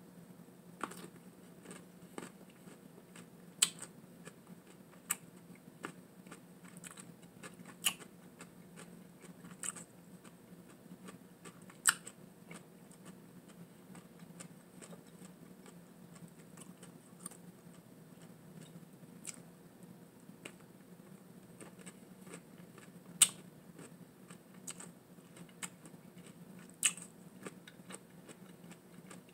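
A person chewing a bite of sour pickle topped with whipped cream, close to the microphone: scattered sharp crunches and wet mouth clicks at irregular intervals over a faint steady low hum.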